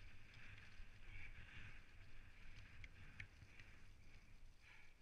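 Faint, muffled rumble of a Specialized Stumpjumper mountain bike rolling down a dirt singletrack, with a few sharp clicks and rattles from the bike about three seconds in.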